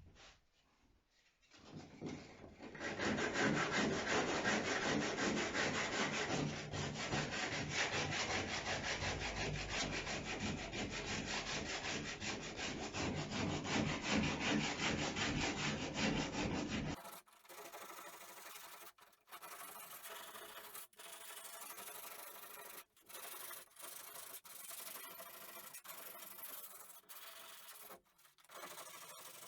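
A power sander runs steadily for about fourteen seconds, then stops abruptly. It is followed by hand sanding: quieter, repeated strokes of sandpaper on the epoxy-coated wooden hull, with short pauses between them.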